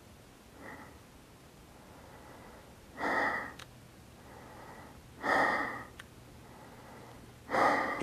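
A hiker breathing hard from exertion: a faint breath near the start, then three loud exhales about two seconds apart, with quieter inhales between.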